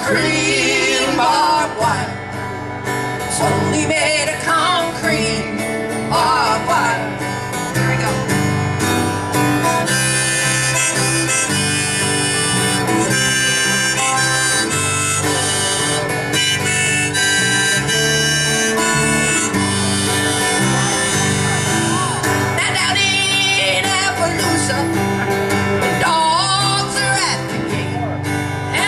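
Live acoustic country band playing an instrumental stretch of a song: strummed acoustic guitars under a wavering lead melody line.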